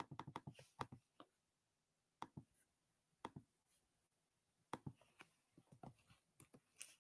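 Faint clicking of typing on a computer keyboard: a quick run of keystrokes at the start, a couple of single clicks, then another run near the end.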